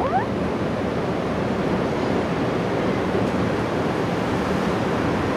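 Steady rushing background noise, even throughout, with a faint low hum under it and a brief rising chirp at the very start.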